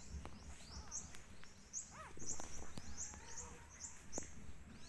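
A small bird chirping over and over, a steady series of short, high chirps, about three a second.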